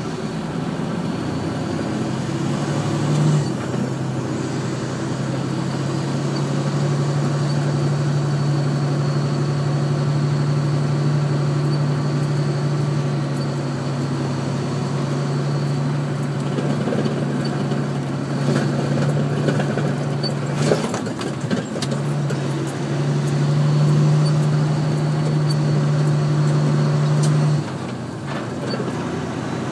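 Heavy engine running steadily with a low hum. A few knocks come a little past twenty seconds in, and the engine runs louder for a few seconds before dropping back near the end.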